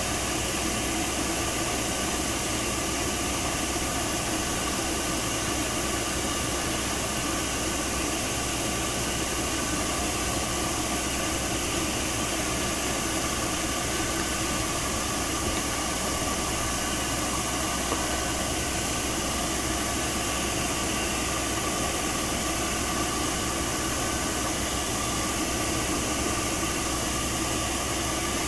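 A hair dryer blowing steadily, its motor hum and the rush of air unchanging, as is usual for drying a cat after a bath.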